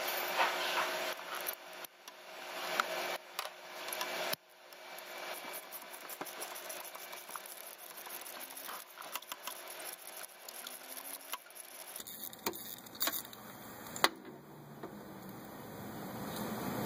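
Light metal clicks and rattles of a socket extension and spark plug socket being worked in the spark plug well, with one sharp click about fourteen seconds in.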